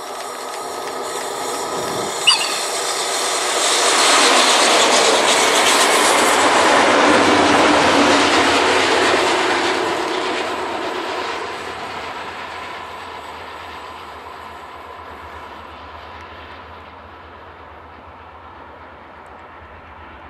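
Freight train hauled by electric locomotives passing at speed: the rumble and clatter of wheels on rail build up, are loudest for several seconds as the wagons go by, then fade away to a low rumble. A brief sharp sound stands out about two seconds in.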